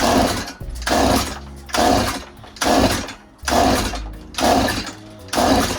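Stihl MS180 chainsaw being pull-started again and again, seven quick rhythmic pulls on the recoil starter, about one a second, the engine turning over without catching: the saw will not start.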